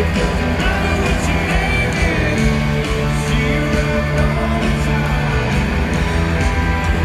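A rock band playing live through a venue sound system: electric guitar over drums, loud and steady.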